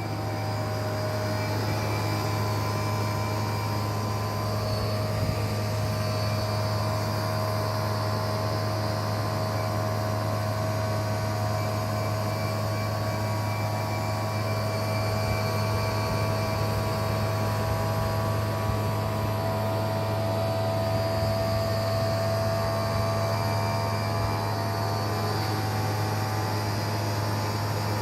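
Abnormal noise from the engine compartment of a Toyota Crown Royal Hybrid, in the area of the air-conditioning compressor: a steady low hum with a steady whine above it. It appears after about an hour of air-conditioner use in hot weather, and the dealer could not find its cause.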